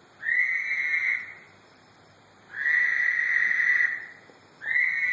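An unidentified animal calling three times: loud, steady, high-pitched calls of about a second each, a second or so apart, with the third still going at the end.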